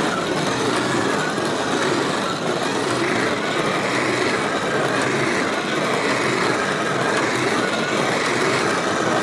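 Motorised spinning cage of a Hot Wheels Monster Jam Crash Cage toy set whirring steadily, a small motor and plastic gears turning the cage.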